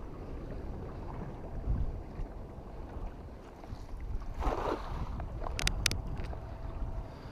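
Wind buffeting the microphone over small waves lapping against breakwater rocks, with a short rush of noise about four and a half seconds in and a few sharp clicks just after.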